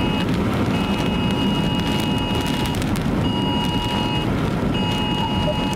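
Steady road and wind rumble of a moving vehicle heard from inside, with a steady electronic tone at two pitches beeping on and off in several long pulses.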